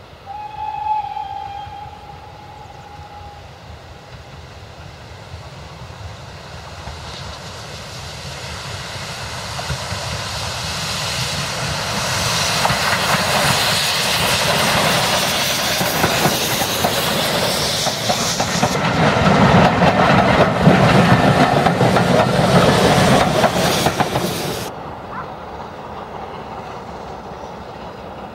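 A steam locomotive whistle sounds once, about two seconds long, then an LMS Fowler 'Jinty' 0-6-0 tank engine draws near and passes with its coaches: exhaust and steam hiss with wheels clattering over the rail joints, growing steadily louder and cutting off suddenly near the end.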